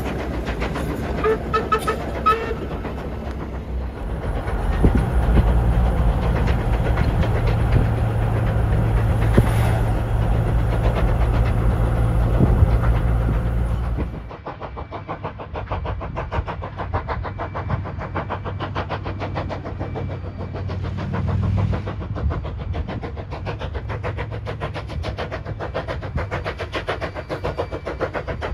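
Steady low rumble of a car driving alongside a train. After an abrupt change about halfway through, a steam locomotive, NM25, is working, its exhaust chuffing in a quick, even beat.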